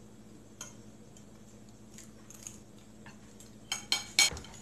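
Metal fork clinking and scraping on a ceramic plate of fried potatoes: a few light clicks, then three sharper clinks in quick succession near the end.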